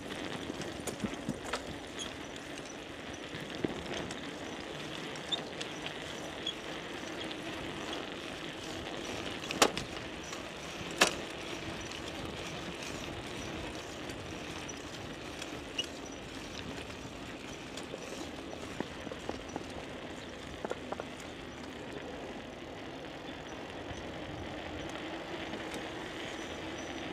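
A bicycle being ridden: steady rolling noise with scattered light clicks and rattles, and two sharper knocks about ten and eleven seconds in.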